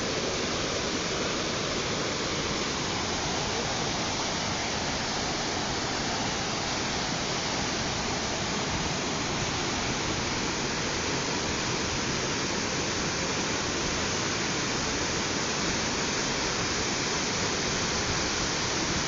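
Waterfall: water falling and rushing in a steady, unbroken noise that does not change.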